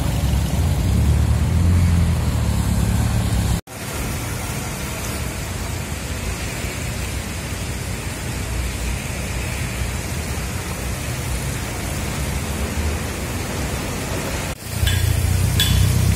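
Low rumble of a car driving along a flooded street that cuts off abruptly after about three and a half seconds, then a steady hiss of rain on the wet street. The low rumble returns near the end.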